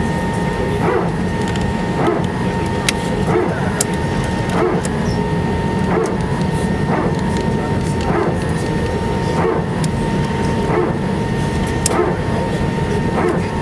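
Airbus A319 cabin on the ground: a steady engine and airflow hum with a thin whine, and a soft bump repeating about every second and a quarter as the wheels roll over taxiway pavement joints.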